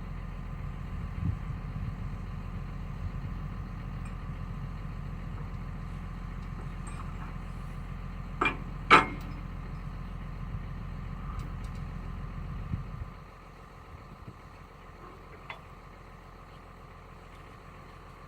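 Heavy diesel machine engine running steadily, with two sharp knocks about half a second apart near the middle. Its low rumble drops off abruptly about two-thirds of the way in.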